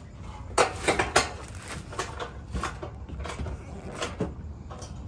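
Sharp clicks and knocks of hands working a hard-shell rooftop tent's plastic shell and fittings: three close together early on, then a few more spread out.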